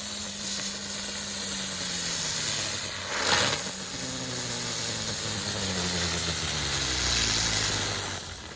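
Two ground bloom flower fireworks spinning on the ground, each giving a hissing spray of sparks with a humming tone that falls in pitch as it slows. A second one flares up about three seconds in, and the hissing stops shortly before the end.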